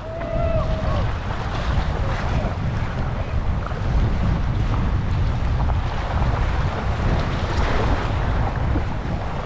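Wind buffeting the microphone over waves washing against jetty rocks.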